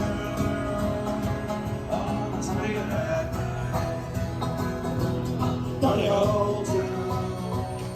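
Background music: an upbeat country-bluegrass track with plucked guitar and banjo and a singing voice.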